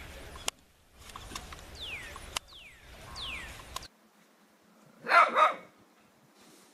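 Small white dog giving two quick barks, one right after the other.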